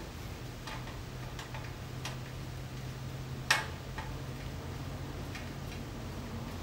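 Scattered faint metallic clicks and ticks of a Phillips screwdriver turning a fender bolt out of a bicycle's fork dropout, with one sharper click about three and a half seconds in.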